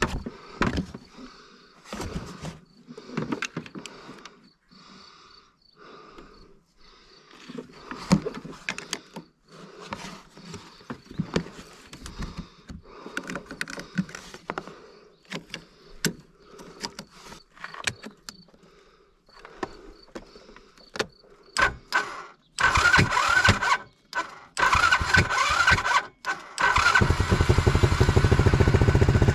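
Scattered clicks and knocks of jumper-cable clamps being handled at a van's battery. Then a small quad bike's engine is cranked in two bursts and catches near the end, settling into a steady run.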